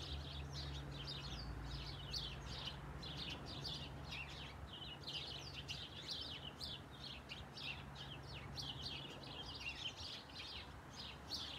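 Small birds chirping, many short quick calls overlapping without a break, over a faint low hum.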